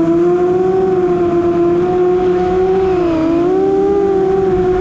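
FPV racing quadcopter's motors and propellers whining steadily at one pitch, the pitch dipping briefly about three seconds in and then recovering.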